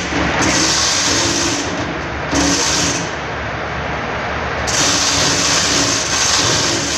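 Loud, steady machinery noise with a hiss that cuts in and out several times over a low hum.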